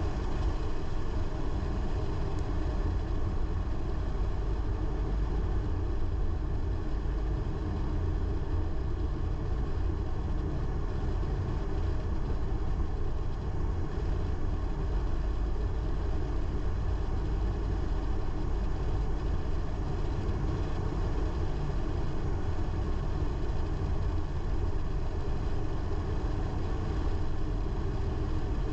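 Car on the move: steady engine and road noise, strongest in the low rumble, with no change throughout.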